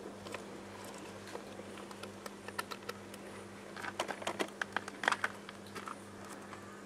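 A meerkat chewing a frozen treat: irregular small crunches and clicks, busiest in a cluster about four to five seconds in, over a steady low hum.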